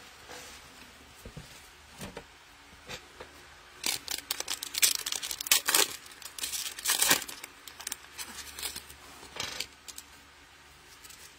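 A plastic trading-card pack wrapper being torn open and crinkled, with a run of crackly bursts from about four to ten seconds in.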